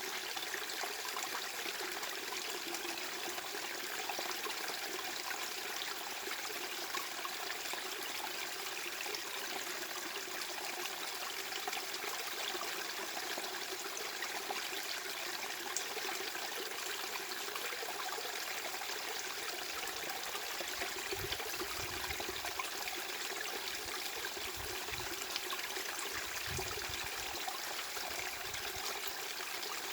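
Steady rushing noise like running water in a small stream, even and unbroken. Several brief low rumbles come in over the last third.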